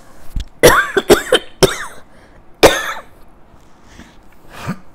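A woman coughing: several coughs in a quick run in the first two seconds, then one more cough a second later and a faint one near the end.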